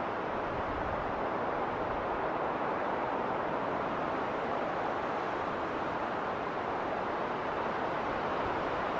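Winter wind blowing through a snowstorm, a steady rushing noise that neither builds nor drops.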